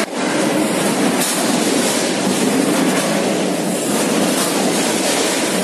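Vertical form-fill-seal packing line running while it bags chicken parts: a loud, steady mechanical din without a clear beat.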